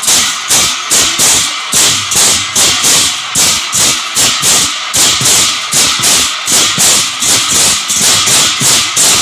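Many large brass hand cymbals clashed together by a group of players, in a steady rhythm of about three clashes a second, each stroke ringing bright and short.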